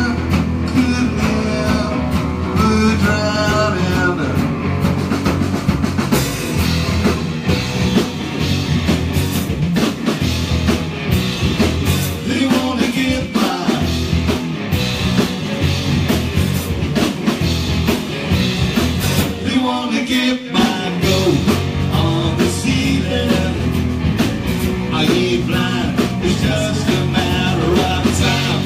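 Live rock band playing loud in a small pub: a male singer with electric guitar over a full drum kit and bass, with a brief break in the beat about two-thirds of the way through.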